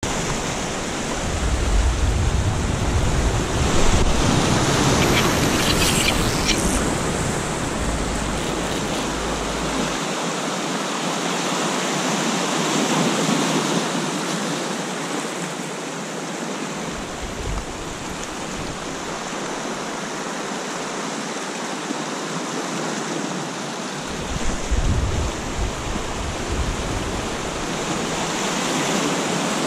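Sea surf washing in and out over rocks, with wind buffeting the microphone in gusts, heaviest in roughly the first ten seconds.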